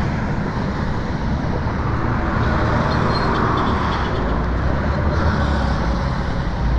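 Steady road traffic on a busy street: the engines and tyres of passing cars, motorcycles and a minibus taxi make a continuous rumble.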